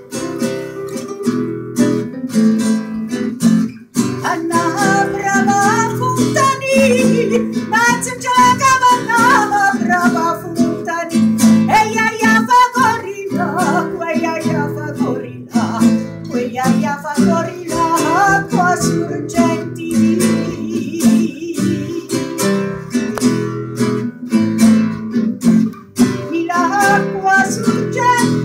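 Live folk song: two acoustic guitars strumming and picking, with a woman's voice singing the melody from a few seconds in.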